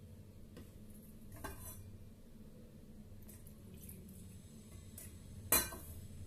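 Kitchen utensils being handled: a small steel saucepan and a plastic measuring cup knocked and set down on the counter, a few light clinks with one sharper knock near the end.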